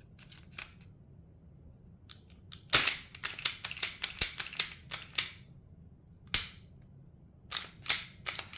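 Sharp metal clicks and clacks of a Glock pistol's slide being slid back onto its frame and worked during reassembly. A quick cluster of clicks comes a few seconds in, then single clacks later on.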